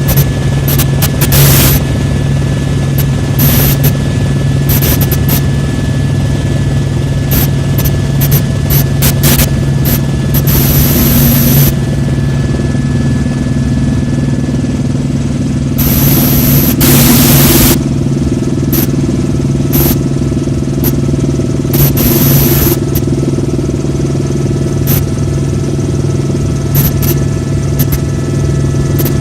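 Tour helicopter in flight: a loud, steady drone of rotor and turbine engine with a low hum, broken by several short bursts of hiss.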